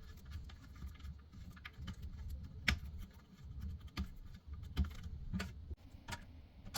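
Scattered small plastic clicks and handling rubs as a plastic nut is finger-tightened onto a toilet seat's hinge screw.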